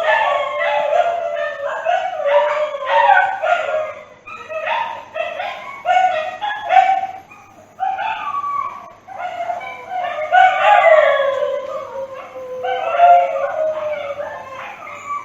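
Dog howling mournfully: a run of short, pitched yelping calls, with a longer falling howl about ten seconds in.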